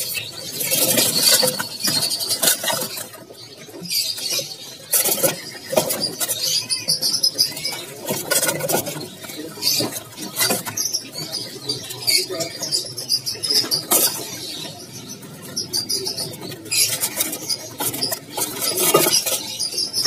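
Small caged songbirds chirping and twittering over one another, high-pitched, with many short clicks and rustles from birds moving about in wooden-and-wire cages.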